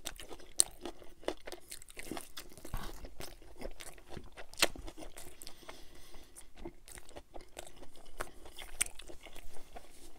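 Close-miked mouth chewing of a pepperoncini and pizza: an irregular run of small wet clicks and crunches.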